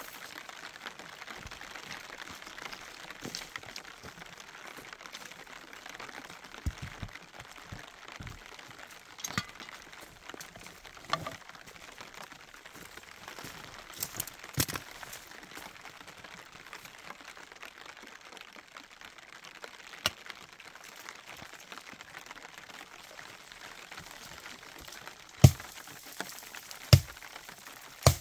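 Sharp knocks and cracks over a faint steady hiss, scattered and fairly soft at first, then three loud ones about a second and a half apart near the end.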